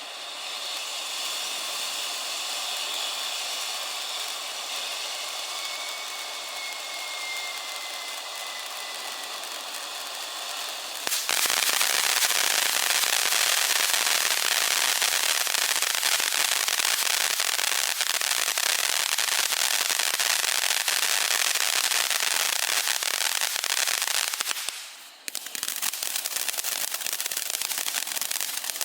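Consumer firework fountain spraying with a steady hiss and a faint falling whistle. About eleven seconds in, it switches abruptly to a louder, dense crackling spray. The crackling briefly drops away near the end, then resumes as rapid crackling pops.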